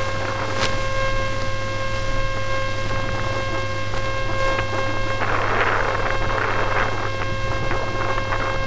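RC airship in flight heard through its onboard camera: a steady electric hum with several constant high whining tones from its motors and electronics. A rushing noise swells in about five seconds in and fades about two seconds later.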